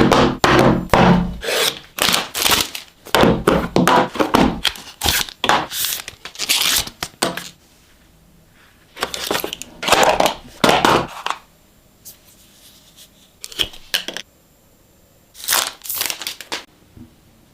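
Smartphone box packaging being torn open and handled: rapid, irregular bursts of tearing and crinkling, packed together for the first seven seconds or so, then three short separate bursts with quiet between them.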